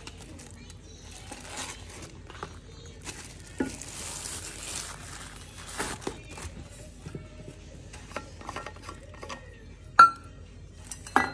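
Handling a stainless steel vacuum flask and its zippered fabric case: rustling of plastic wrap and soft knocks, with a sharp metallic clink about ten seconds in and another just before the end.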